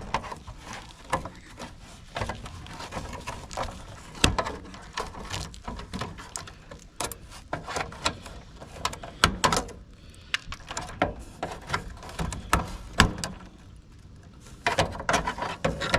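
Irregular clicks, snaps and knocks of hands working inside a heat pump's control panel, removing the old defrost control board from its mounting.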